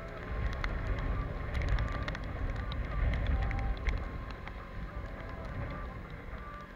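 Wind rumbling on the microphone over the running of a Piaggio X Evo 125 cc scooter and its tyres on a wet road, with scattered sharp ticks of raindrops hitting the camera. The rumble swells from about half a second in and eases after about four seconds.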